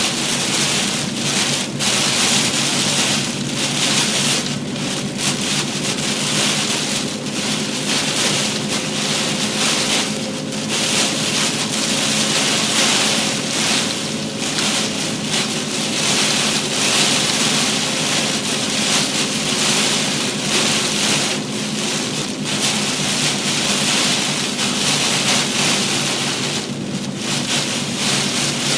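Torrential rain drumming on a moving car's roof and windshield, a loud, steady downpour, with a faint steady hum from the car underneath.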